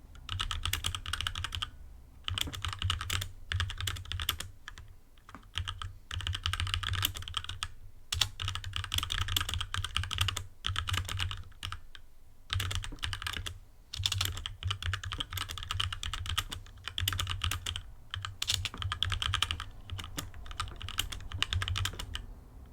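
HyperX Alloy Origins Core mechanical keyboard with linear red switches being typed on fast: dense rapid key clicks in runs, with short pauses every few seconds.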